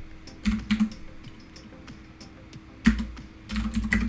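Computer keyboard keystrokes typing lines of assembly code: a few clicks about half a second in, a single sharp one near three seconds, then a quick run near the end.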